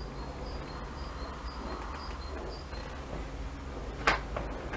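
O gauge model tank locomotive with DCC sound running slowly, a steady low hum, with one sharp click about four seconds in. Over the first half a bird repeats a high two-note chirp, about two notes a second.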